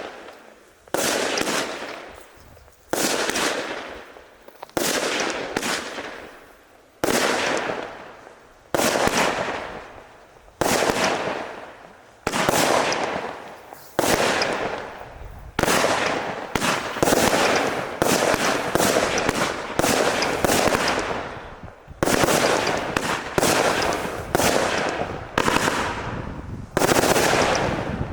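Hestia YH2126 consumer fireworks battery (cake) firing shot after shot, each a sudden bang that trails off over a second or so. The shots come about every two seconds at first, then faster and overlapping from about halfway through.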